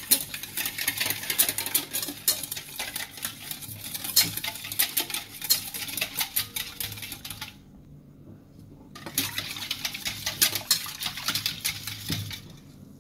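Wire whisk beating egg and sugar in a stainless steel bowl: rapid clicking and scraping strokes of the wires against the metal. The whisking stops for about a second and a half past the middle, then starts again and stops near the end.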